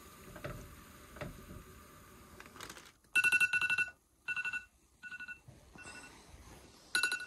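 Smartphone alarm going off: rapid electronic beeps at two pitches, sounding in repeated short bursts, starting about three seconds in.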